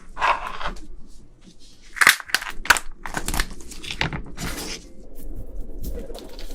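Crackling and snapping of a large black tiger shrimp's shell being cracked and pulled apart, with a run of sharp snaps, two of them especially crisp about two seconds in.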